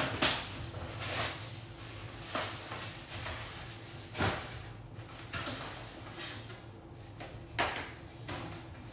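A handful of scattered knocks and bumps from objects being handled, with the clearest just after the start, about four seconds in and near the end, over a faint steady low hum.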